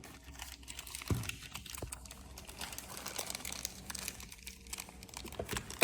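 Small plastic clicks, taps and rustling as the smart lock's battery box is handled and set into place in the rear panel, with a sharper knock about a second in and another near the end.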